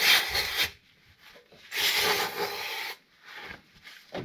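Aerosol cleaner sprayed from a spray can in two hissing bursts of about a second each, one at the start and one about two seconds in, followed by faint rubbing of a paper towel near the end.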